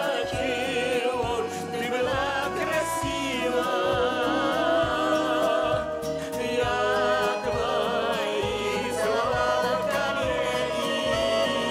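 Vocal ensemble singing a slow song with instrumental accompaniment, holding long notes with vibrato.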